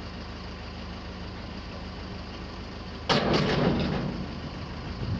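Net-washing drum machine running with a steady motor hum. About three seconds in, a sudden loud noise lasting about a second and then fading, as the slatted drum cage lifts open.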